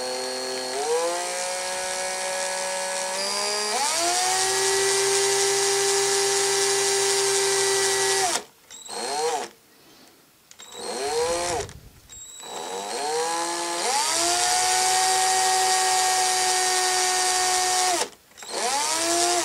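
Electric drill running slowly with a 1.5 mm bit, boring a pilot hole into a toy figure's plastic ankle: a steady motor whine that climbs in pitch as it speeds up over the first few seconds, stops about eight seconds in, comes back in a few short spin-ups and spin-downs, runs steady again, and stops near the end after one more short burst.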